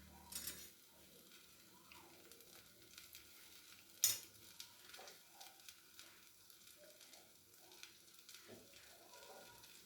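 Faint sizzling and crackling of an oats and bottle gourd roti cooking in ghee on a covered pan, with a sharp click about four seconds in.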